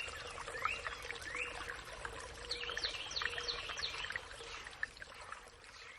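Birds chirping and calling in quick, rising notes over a faint steady hiss, growing quieter toward the end.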